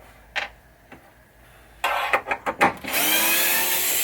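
Small DeWalt electric screwdriver backing out a screw, its motor running with a slightly rising whine for about a second near the end. Before that come several sharp clicks and knocks as the bit is set on the screw.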